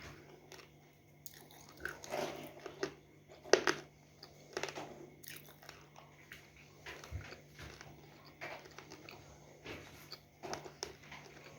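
Close-up biting and chewing of a crumbly, layered 'chărodeyka' (чародейка) that is moist in places, with scattered sharp crunches between quieter chewing; the loudest bite comes about three and a half seconds in.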